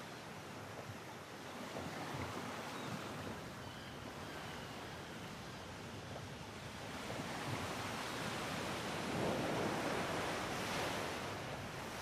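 Faint, steady rushing noise with no tune or rhythm, swelling a little about two-thirds of the way in.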